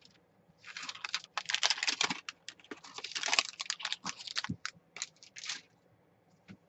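Thin translucent paper sheet rustling and crinkling as it is lifted and folded over a journal page: a dense run of crackles that lasts about five seconds and stops near the end.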